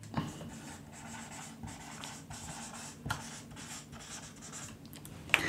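A marker writing on a whiteboard: faint scratchy strokes as a word is written out in short, irregular pen movements.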